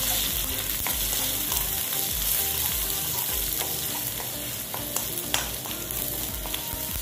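An egg sizzling in hot coconut oil in a non-stick pan while a spatula stirs and breaks it up, with a few scrapes and sharp taps against the pan.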